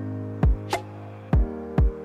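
Background music: an electronic drum beat of deep kick thumps and sharp hits over held pitched notes.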